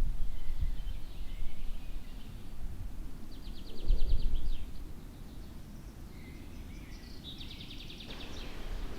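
Forest birds calling: a few scattered chirps, then two quick trills of about a second each, the second near the end, over a gusty low rumble that is loudest in the first half.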